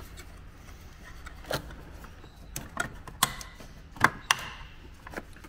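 Sharp plastic clicks and taps from handling a car's accessory fuse box and its pinned wiring: about six scattered clicks, the two loudest close together about four seconds in.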